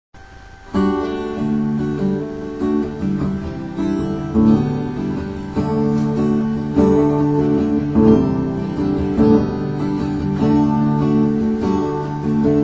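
Acoustic guitar playing an instrumental intro of picked and strummed chords, starting about a second in.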